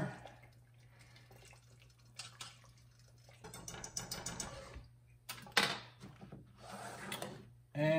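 A spoon stirring spices into a pot of gumbo sauce: soft scraping and swishing, with a few clicks and a sharp knock against the pot a little past halfway. A faint low hum runs underneath.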